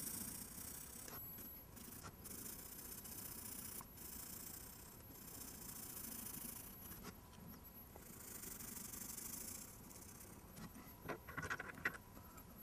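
Coloured pencil shading on paper: soft scratchy rubbing in stretches of back-and-forth strokes. About a second before the end, a short cluster of clicks and knocks.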